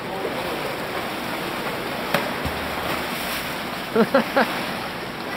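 Steady splashing and lapping of pool water stirred by kayaks, with a sharp knock about two seconds in and a quick three-syllable shout near the end.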